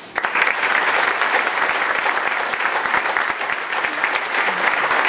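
Audience and choir applauding: dense clapping that breaks out at once and holds steady.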